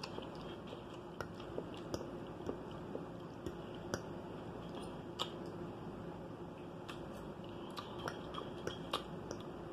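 A person chewing a mouthful of food, with scattered soft clicks and smacks of the mouth.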